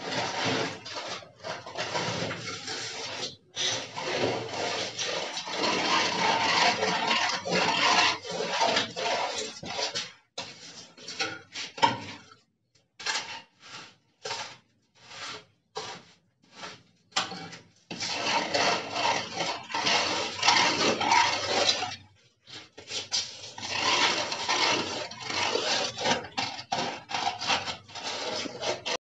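A hand float rubbed back and forth over fresh sand-cement plaster on the lower part of a wall, a rasping scrape, as the patches of mortar are rubbed smooth. The scraping comes in long continuous runs, broken near the middle by several seconds of short separate strokes with pauses between them.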